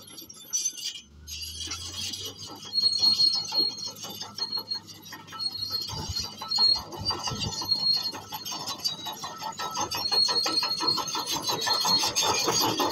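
Bulldozer at work: steel tracks clanking and squealing, a high squeal cutting in and out over constant metallic knocking, with the engine humming low underneath.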